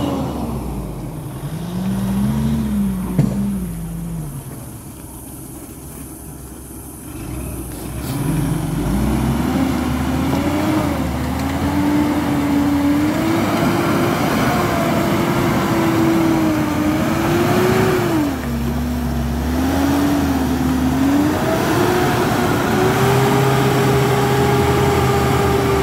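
Four-wheel-drive pickup truck's engine revving in mud. A couple of short revs come first, then a lull of a few seconds, then hard revving held high and wavering for the rest, with a brief drop about two-thirds of the way through.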